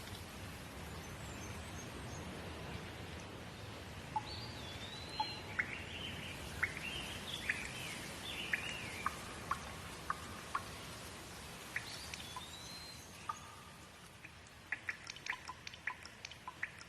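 Steady rain hiss with birds calling over it: a series of short chirps that rise and fall. Near the end the rain thins and gives way to a quick run of separate water drips.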